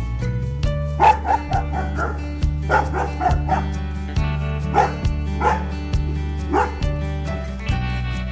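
A dog barking and yipping repeatedly in short, quick runs, over background music with steady low held notes.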